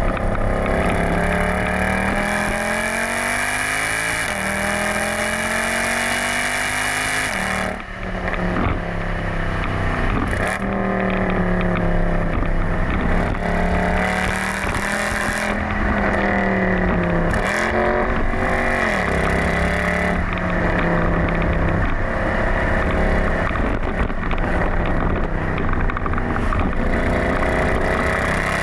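Mercedes-Benz C63 AMG (W204) 6.2-litre V8 running through an exhaust with the secondary catalytic converters removed and a stage 2 engine map, its pitch rising and falling again and again as the revs climb and drop. There is a brief drop in loudness about eight seconds in.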